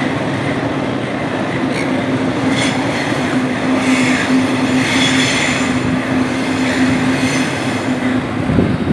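Double-deck electric suburban train running past on the tracks with a steady hum, its wheels squealing on the rails through the middle. A brief low thump near the end.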